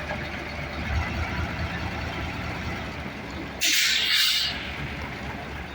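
Heavy vehicle engine running steadily, with a loud burst of hissing about a second long a little past the middle.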